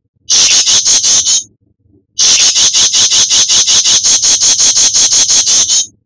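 Songbird's rapid, high chattering call (crecetan), in two bouts: a short one about a second long, then a longer one of about three and a half seconds.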